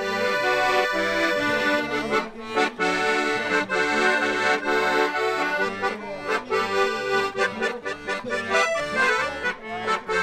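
Instrumental music: a bright melody over a bass line that steps between two notes about twice a second.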